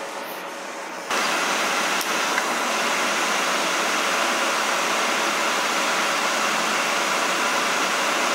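A steady, even hiss that starts abruptly about a second in, with a faint click shortly after.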